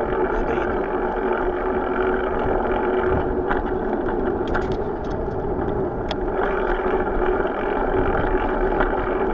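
Steady rushing rumble of wind and road noise on a bicycle-mounted camera while riding along an asphalt road, with a few faint clicks and rattles from the bike midway.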